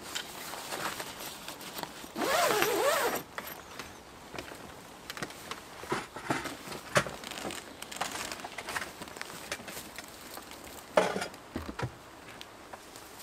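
Zip on a rooftop tent's fabric pulled along in one long run about two seconds in, its pitch wavering up and down with the pull. Then scattered rustles of tent fabric, clicks, and a sharp knock near the end as the tent is folded down.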